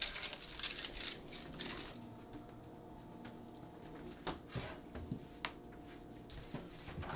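A bunch of car keys jangling: a dense metallic rattle in the first two seconds, then a few scattered clinks.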